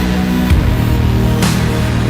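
Background music with a heavy electronic beat: sustained bass notes and a drum hit about once a second.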